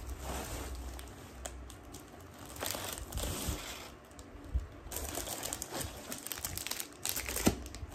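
Hands rummaging through a subscription box: plastic and paper packaging crinkling and rustling, with a few sharp light knocks.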